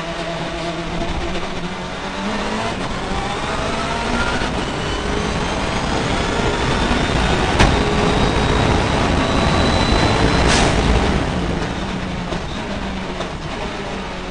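Race car engine heard from inside the cockpit, accelerating hard through the gears: the pitch climbs and drops back at each upshift, from second up to fifth. A single sharp crack sounds about halfway. Near the end the revs fall and settle lower as the car comes off full throttle.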